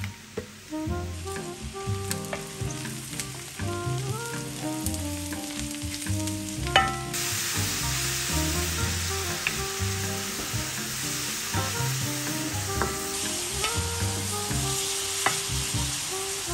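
Food frying in a pan: a steady sizzle with small clicks of stirring. There is a sharp knock about seven seconds in, after which the sizzling grows louder.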